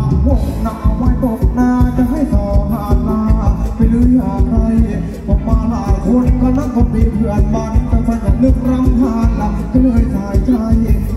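Live Thai ramwong dance band music, loud and amplified, with a steady heavy drum beat under a melody line.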